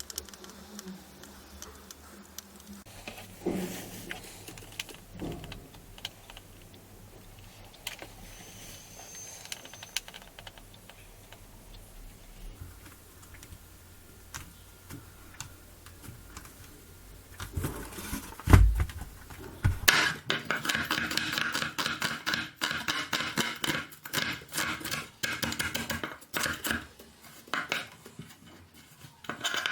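Handwork sounds: scattered small clicks and light handling for a long stretch, then a single heavy thump, followed by a dense run of rapid clicking and scraping strokes.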